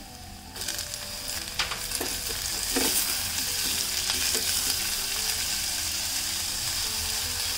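Diced bell peppers tipped into hot oil and onions in a stainless steel saucepan, sizzling as they fry, with a spatula stirring and knocking against the pan. The sizzle starts about half a second in and builds to a steady hiss.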